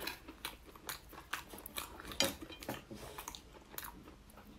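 Close-up mouth sounds of someone eating meat by hand: wet chewing and irregular lip smacks, roughly two a second.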